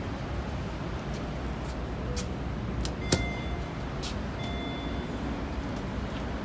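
KONE elevator arriving at the landing: a sharp click with a brief high beep about three seconds in, and a second short beep about a second and a half later, as the car doors slide open. A steady low background rumble runs underneath.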